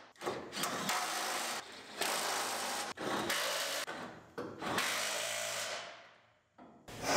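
Power tool driving the pickup bed's mounting bolts down, in several short runs of about a second each, the last winding down.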